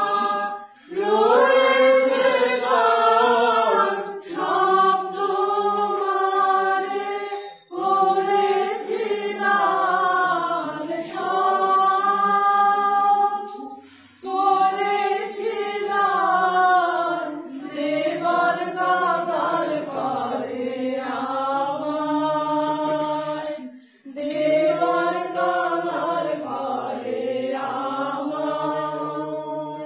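A group of women singing together in unison without instruments, in long drawn-out phrases with short pauses for breath between them.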